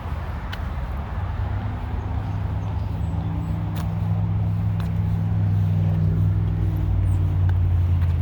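Motor vehicle engine, a low steady drone that grows louder over several seconds, over a constant rush of traffic noise.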